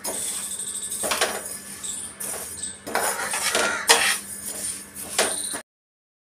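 Spoon stirring fennel and fenugreek seeds as they dry-roast in a pan, scraping and clinking against the pan with the seeds rattling. It cuts off suddenly about five and a half seconds in.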